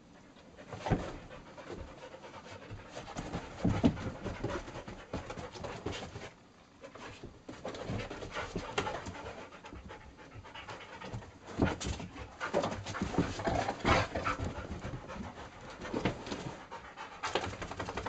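Dogs panting hard while play-fighting, with irregular thumps and scuffles throughout.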